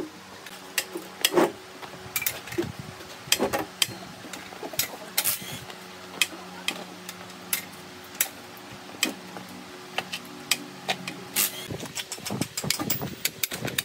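Workshop clatter: irregular sharp clicks and knocks of hand tools and metal parts being handled, with the loudest knocks about a second in and again near the end. A faint steady machine hum runs underneath and stops about three seconds before the end.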